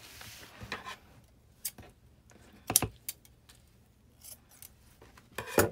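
Scissors cutting metallic tinsel cord, with light rustling as the cord is pulled from its card. A few sharp snips, the loudest near the middle and just before the end.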